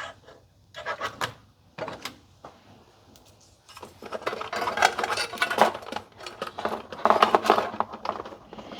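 Handling noise as power-supply cables are fed through a small ITX PC case: a few light clicks, then from about four seconds in a longer run of scraping, rattling and clicking of cables and hard plastic and metal parts.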